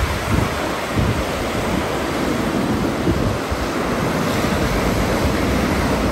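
Mediterranean surf breaking and washing up a sandy beach, a steady rush of waves, with wind rumbling on the microphone.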